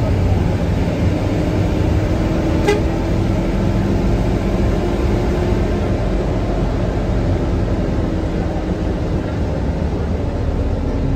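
Steady low rumble of a Hino AK8 bus's diesel engine running, with a single short click a little under three seconds in.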